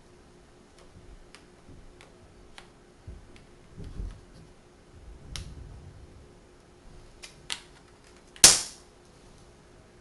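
Magnetic wooden toy blocks clicking together as they are handled and set in place: a scattering of light, sharp clicks, a few soft low knocks, and one loud sharp click near the end as a block snaps on.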